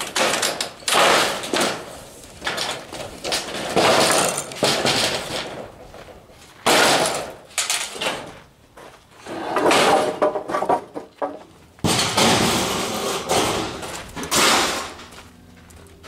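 Corrugated steel roofing sheet rattling and banging while its wooden framing boards are pried off with a steel bar: a run of about seven loud clattering crashes, each a second or two long.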